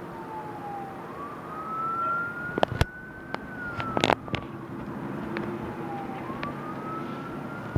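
A siren wailing, its pitch sliding slowly down and back up twice, with sharp pops from distant fireworks scattered through it, the loudest a cluster about four seconds in.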